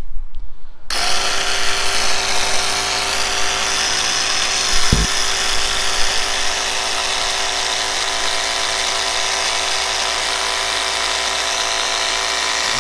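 Graco TrueCoat 360 single-speed handheld airless paint sprayer switched on about a second in, its pump motor running with a steady buzz on the prime setting to push paint through and purge air. A brief low thump about five seconds in.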